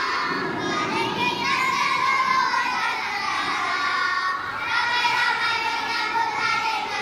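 A choir of young schoolchildren, about a dozen six- and seven-year-olds, singing a song together.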